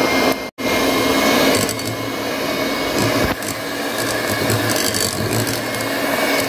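Electric hand mixer running steadily, its beaters creaming softened butter in a glass bowl to beat air into it. The sound cuts out for a moment about half a second in.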